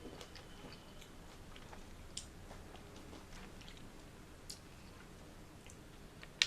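Close-miked chewing of fruit: soft wet mouth clicks and smacks scattered throughout, with a few sharper clicks, the loudest near the end.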